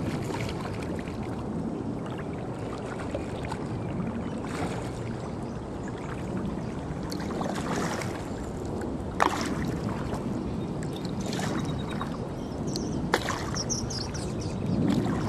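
Kayak paddling: paddle strokes splashing and dripping in the water in a slow, repeating rhythm over a steady wash of water noise, with two sharp clicks partway through.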